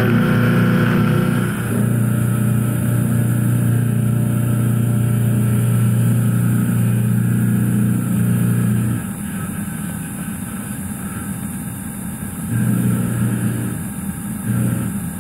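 Doosan DVF 8000T milling machine roughing 6Al-4V titanium with a Kennametal Harvi I TE end mill at about 2,000 rpm under flood coolant: a steady low cutting hum over the hiss of coolant spray. The hum drops away about nine seconds in, as the cut eases, and comes back a few seconds later.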